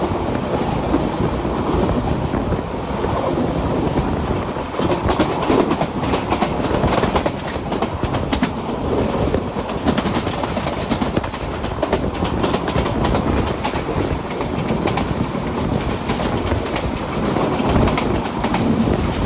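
Bangladesh Railway train running on the rails: a steady rumble and rush of the cars, with the wheels clicking irregularly over rail joints.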